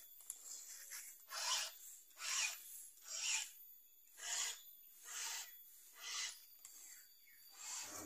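Hand file rasping across the cutters of a Stihl chainsaw chain as it is sharpened, in even strokes about one a second.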